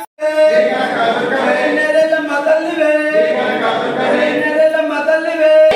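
Voices singing a devotional chant with no instruments, holding long notes; it starts abruptly just after a short gap.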